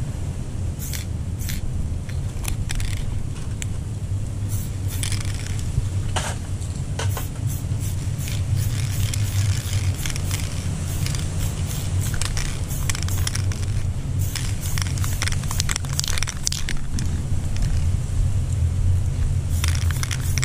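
Short hissing bursts of an aerosol spray-paint can, many of them at irregular intervals, over a steady low rumble of wind buffeting the action camera's microphone.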